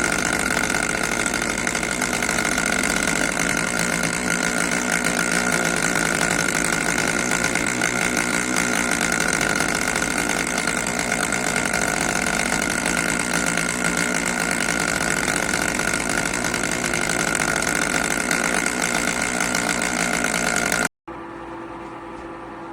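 Electric ice cream maker running while it churns a batch: a loud, steady motor whir with a constant whine. Near the end it cuts off abruptly to a quieter steady hum.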